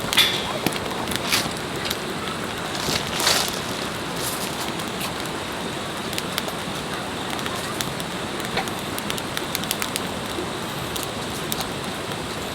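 Wood campfire burning, a steady hiss with many small crackling pops and a few louder snaps near the start and about three seconds in.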